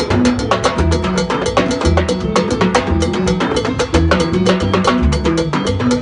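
Live salsa band playing, with timbales struck with sticks driving a dense, steady run of percussion strokes over a stepping bass line.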